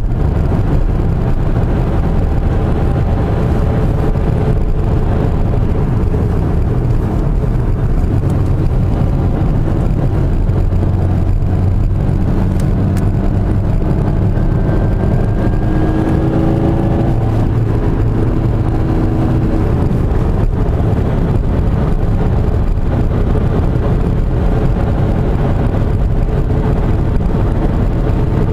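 Car driving on an asphalt road, heard from inside the cabin: a steady low rumble of engine, tyres and wind, with the engine note rising for a few seconds midway as it accelerates.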